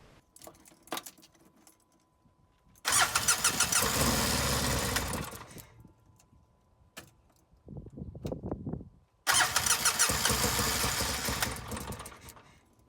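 2005 Polaris Ranger XP 700's engine cranking on the starter in two attempts of about three seconds each, the second starting about nine seconds in, without catching. This is a no-start that the owner puts down to a failed fuel pump.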